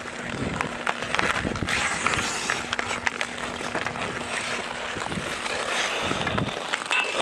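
Ice skate blades scraping and carving on the ice, with hockey sticks clacking against the puck and the ice: a steady scraping hiss broken by many sharp taps.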